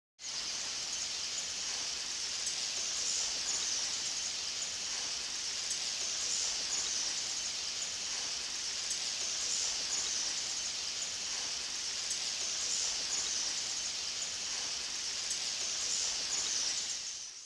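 Dense insect chorus of a tropical rainforest: a steady high-pitched hiss with a faint pulsing. It starts abruptly and fades out near the end.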